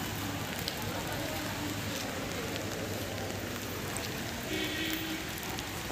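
Steady rain falling on a wet paved road and trees, an even hiss.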